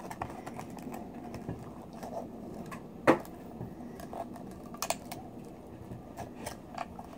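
A small hand tool prying at the lip of a large pearl oyster shell: scattered clicks and scrapes of the tool against the shell, with one sharp click about three seconds in and another near five seconds.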